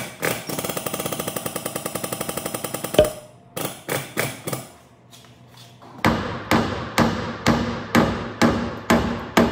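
Body hammer striking the Subaru's sheet-steel rear end panel while a chain pull holds it under tension. A fast run of light taps, about ten a second, ends in one sharp blow about three seconds in. After a short pause come steady, ringing hammer blows a little over two a second.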